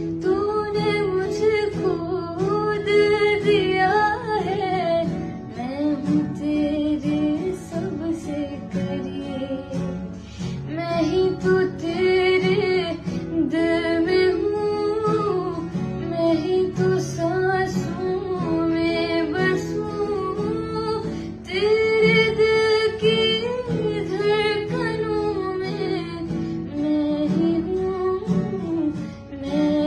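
Music: a Hindi song, with a voice singing a drawn-out melody over plucked acoustic guitar.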